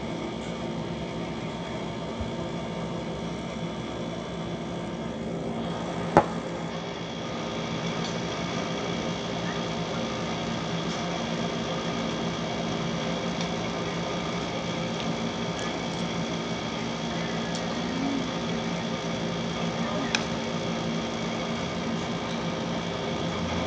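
Window air conditioner running with a steady hum. A single sharp knock about six seconds in.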